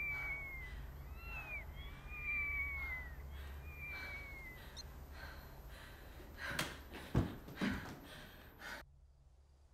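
A cat meowing about four times in the first four seconds, each call long and falling in pitch. Later come a few sharp knocks and rustles of the camera being handled, the loudest about seven seconds in, and the sound then cuts off suddenly.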